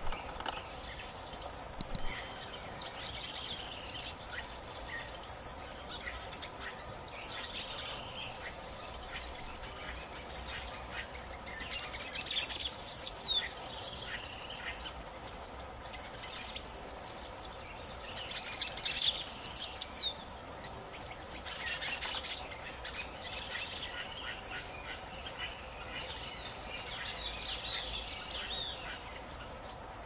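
Songbirds singing and calling: a green-winged saltator among several birds, with whistled gliding phrases and short high chirps. The loudest bursts of song come about twelve and eighteen seconds in.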